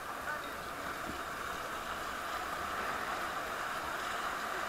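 Rushing whitewater of river rapids, a steady noise growing slowly louder as the raft draws nearer.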